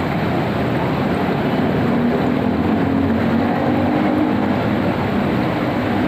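Hot tub circulation pump and jets running: a steady, loud rumble with a churning, rushing sound of water and a faint motor hum underneath.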